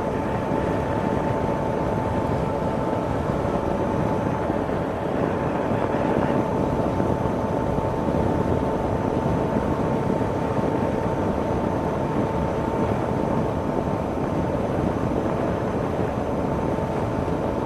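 Steady running noise of a moving vehicle: an even low rumble with a constant high hum over it.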